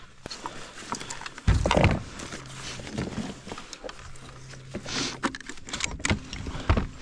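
Kayak handling on calm water: paddle splashes and knocks against the plastic hull, with a louder low thump about one and a half seconds in and a few sharp knocks near the end.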